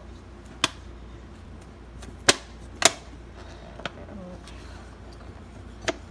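A thin red plastic cup pressed upside down through bread onto a counter, giving five sharp plastic clicks and cracks at uneven intervals, the loudest two about two and three seconds in.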